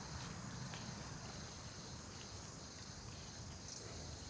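Insects droning steadily in a high pitch over a low rumble, with a few faint clicks.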